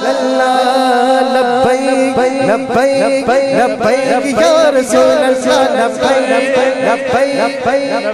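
A man singing a Punjabi naat, an unaccompanied devotional song, into a microphone, his voice gliding through long ornamented phrases over a steady held tone beneath.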